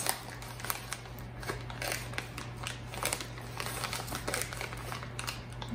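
Small plastic bag of chili powder crinkling as it is handled and opened: a run of small, irregular crackles.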